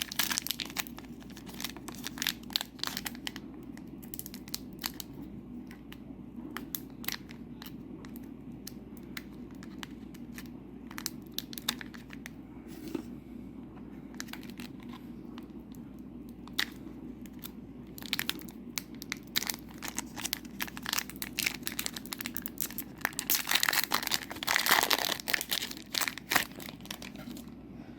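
Foil trading-card booster pack wrapper crinkling and being torn open, with the cards handled, in irregular bursts over a steady low hum.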